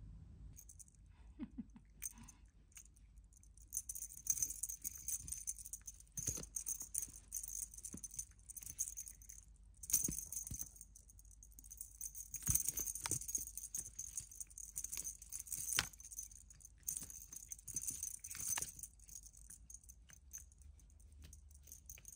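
Jingling and rattling in repeated bursts with scattered taps, from a cat toy being shaken and batted during play, starting a few seconds in, pausing briefly around the middle and dying away near the end.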